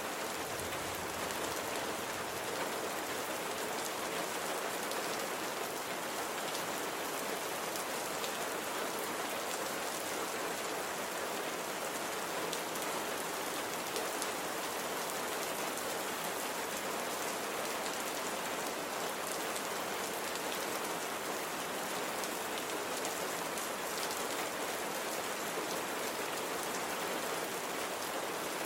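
Steady rain falling and pattering on a surface, an even hiss of many fine drops without pause.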